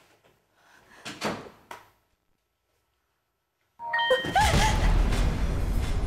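A door shutting, with a couple of knocks and a click about a second in. After a short silence, eerie suspense music starts near the end with sliding tones and is the loudest sound.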